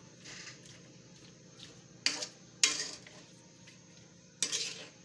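Metal tongs clanking against a metal pan while stirring jackfruit in thick sugar syrup, three sharp clinks: about two seconds in, again half a second later, and near the end.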